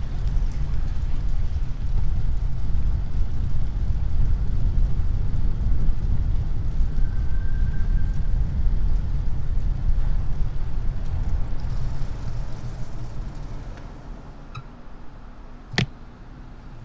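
Low rumble of road and wind noise from a vehicle moving along a street. It fades as the vehicle slows and stops about three-quarters of the way through. A single sharp click follows near the end.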